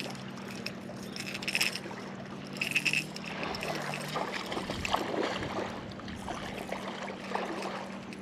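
A fishing boat on open water: a steady low hum runs throughout, with short splashes and lapping water, the splashes strongest about a second and a half and three seconds in.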